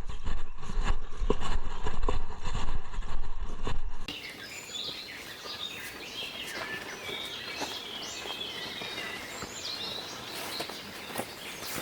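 Loud low rumble with irregular knocks for about four seconds, then it cuts off abruptly. After that, several wild birds sing: many short chirps and trills over a soft background of forest ambience.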